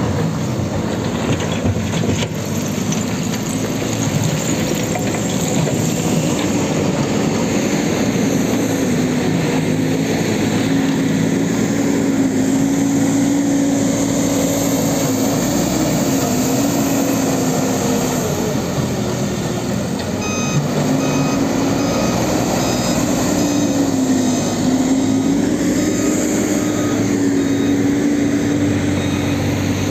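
Diesel engines of a JCB 3CX backhoe loader and a wheel loader working, their pitch rising and falling with the load. About two-thirds of the way through, a reversing alarm starts beeping repeatedly and carries on nearly to the end.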